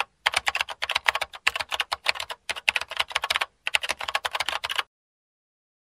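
Typing sound effect: rapid key clicks in several quick runs with short breaks, stopping about a second before the end.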